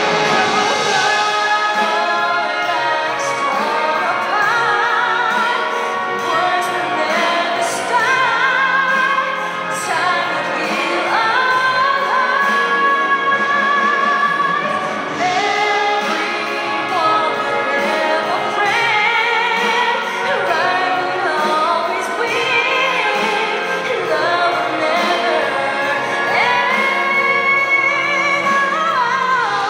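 A female singer sings a slow ballad with a symphony orchestra, holding long notes with vibrato.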